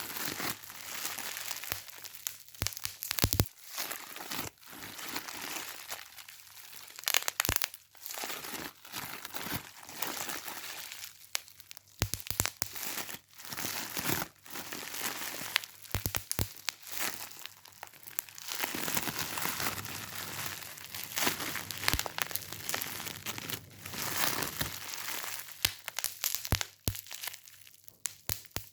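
Continuous close crinkling and crackling of crumpled material, with many small sharp clicks and a few louder cracks, getting denser about two-thirds of the way through.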